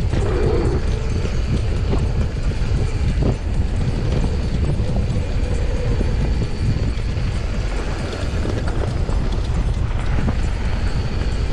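Mountain bike descending a dirt trail: knobby tyres rumbling over packed dirt, briefly over a wooden boardwalk at the start, with wind buffeting the microphone and the bike knocking and rattling over bumps.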